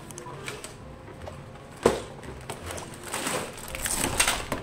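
Cardboard box and plastic parts bags being handled: rustling, crinkling and light clicks, with one sharp knock about two seconds in and denser crinkling of plastic bags near the end.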